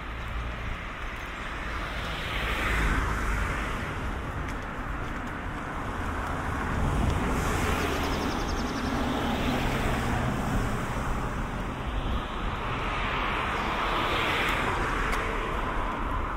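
Cars passing by one after another on a street, the tyre and engine noise swelling and fading three times.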